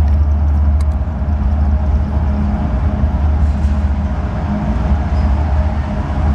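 Diesel engines of a pair of CSX ES44AH locomotives (GE GEVO-12 V12s) working a train, heard as a steady, loud low rumble before the train comes into view.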